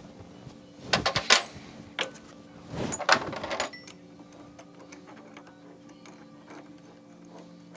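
Milling machine table clamp hardware worked by hand: two short bursts of metallic clicking and rattling, about a second in and about three seconds in, with a single click between them, over a steady low hum.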